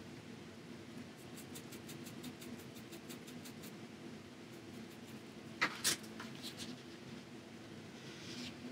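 Quiet handling of a paintbrush and acrylic paint: faint quick ticks while the brush works paint on the palette, two sharp clicks a little past the middle, and a short soft brushing hiss of the brush on the paper near the end, over a steady low room hum.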